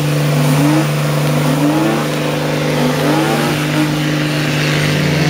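BMW E34 5 Series engine held at high revs in a burnout, the rear tyres spinning on the spot and smoking. The engine note stays steady, with short upward sweeps in pitch about once a second.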